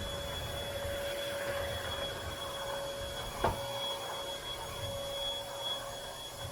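Bissell Featherweight 2033Y corded stick vacuum running steadily, a constant motor whine with one middle and one high pitch over rushing air. A single knock about halfway through.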